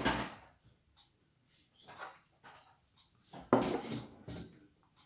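Kitchen handling noises: a sharp knock at the start, a few soft clunks, and a louder clatter about three and a half seconds in, from cupboards and things being moved on the counter.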